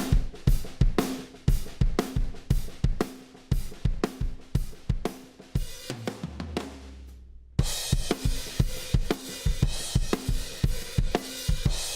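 Recorded live drum kit playing a steady beat of kick, snare and hi-hat, played back through a compressor plugin. About 6 s in the cymbals drop out under a few low tom hits, then at about 7.5 s the beat comes back with a crash and a brighter, busier cymbal wash.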